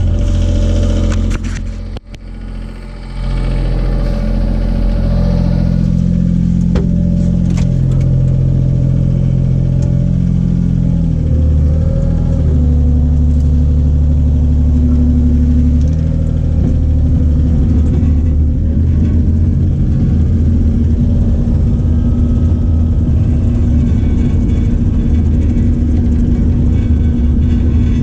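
Cat mini excavator's diesel engine running steadily, its note shifting up and down a few times as the load changes, with a brief drop in level about two seconds in.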